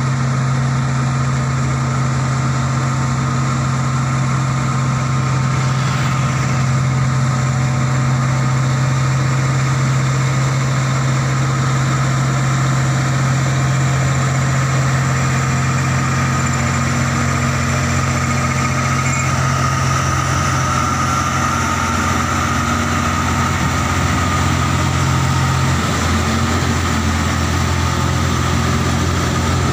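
Diesel engines of heavily loaded trucks, a Mitsubishi Fuso leading, labouring up a steep grade in low gear with a loud, steady drone. The engine note shifts lower near the end as the second truck comes close.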